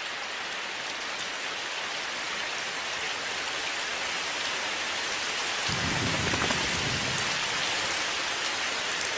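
Steady rain falling. A low rumble of thunder comes about six seconds in and lasts about a second and a half.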